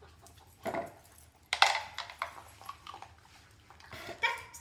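A few sharp knocks and clatters of a tennis ball and a border collie's muzzle against a plastic dog bowl as the dog drops the ball in, the loudest knock about a second and a half in.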